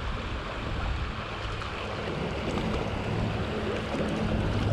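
Shallow river riffle rushing over stones, with wind buffeting the microphone.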